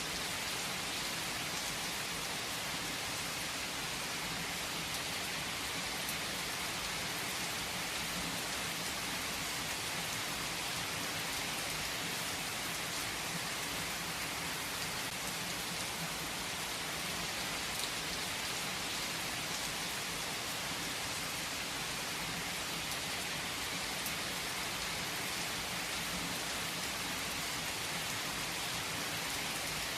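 Steady rain falling on a surface, with an even hiss and scattered faint drop ticks, holding level throughout.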